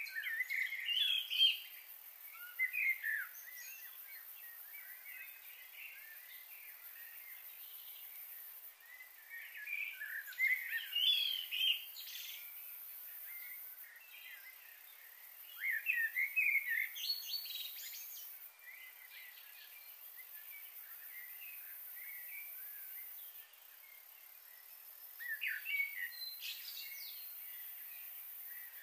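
Birds calling in quick chirpy bouts, four bursts a few seconds apart, over a steady faint high hiss.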